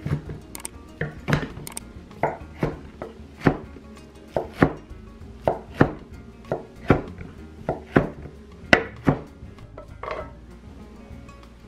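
Chef's knife chopping through cooked rice vermicelli and striking a wooden cutting board, a steady run of sharp knocks about two to three a second, with a short pause near the end.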